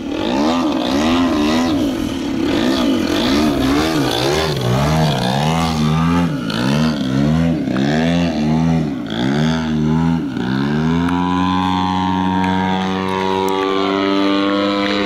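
Engine and propeller of a 35% Aeroworks Extra 260 radio-control aerobatic plane in flight. For about the first ten seconds its pitch swings up and down over and over through the manoeuvres, then it settles into a steady note.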